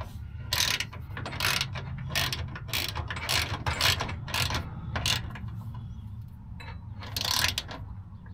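Large hand ratchet wrench clicking in a run of short back-and-forth strokes as it tightens bolts snug, easing off for a moment before a last burst of clicks near the end.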